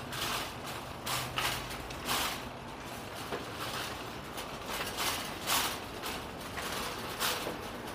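Metal shopping cart being pushed over a concrete sidewalk, its wheels and wire basket rattling, with a sharper clatter every second or so.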